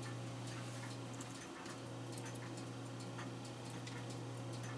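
Faint clock ticking, a tick every half second or so, over a steady low hum.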